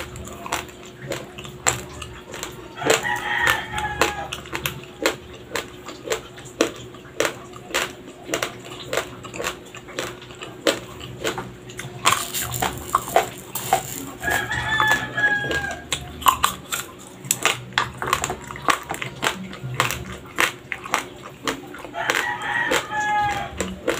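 Raw white Dinurado rice grains crunching as they are chewed, sharp crunches about a second apart. About twelve seconds in there is a brief rustle of rice being scooped with a wooden spoon. In the background an animal call sounds three times, each about a second long.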